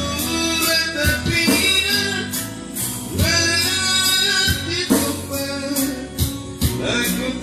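Music with singing over a steady beat of percussion strikes.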